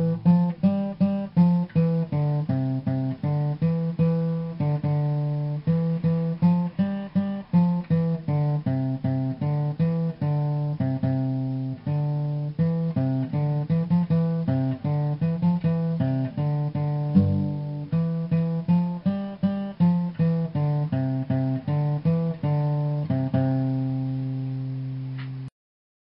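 Instrumental guitar music: a steady run of plucked notes, each struck sharply and fading, that cuts off suddenly near the end.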